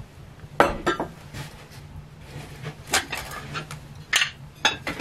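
Glass dishes clinking and knocking together as pieces of a pressed-glass tableware set are handled and lifted out of a box: several separate clinks with brief ringing, the loudest about half a second in.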